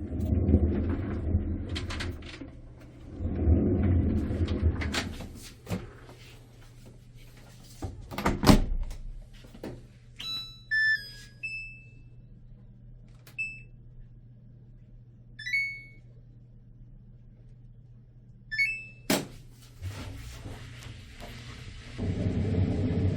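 Drum washing machine rumbling heavily, then knocks and clicks and a series of short electronic beeps from its control panel, then the drum rumbling loudly again near the end. The rumble is the noise of a worn drum bearing.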